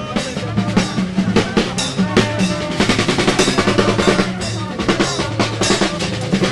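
Drums playing a fast, dense beat over a steady bass line.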